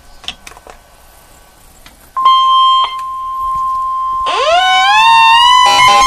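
A few handling clicks, then about two seconds in the steady NOAA Weather Radio warning alarm tone starts through a Midland weather radio's speaker. About four seconds in, a second siren-like alarm rises in pitch over it and turns into a fast pulsing warble near the end, marking a storm warning alert.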